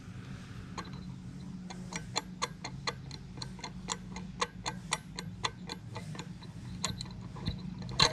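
Old turbocharger's compressor wheel and shaft worked by hand at the nut, giving light, even clicks about four a second: the shaft has bad play.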